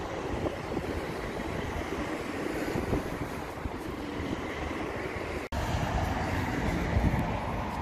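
Aston Martin DBX's twin-turbocharged V8 idling, heard up close at the open engine bay as a steady low rumble. The sound cuts out for an instant about five and a half seconds in, then resumes a little louder.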